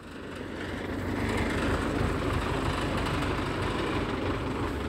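Tractor engine running steadily at idle, a low, even rumble that fades in over the first second.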